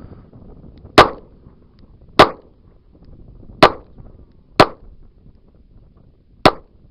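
Five shots from a Charter Arms Undercover .38 Special revolver, fired double action at an uneven pace, one to two seconds apart.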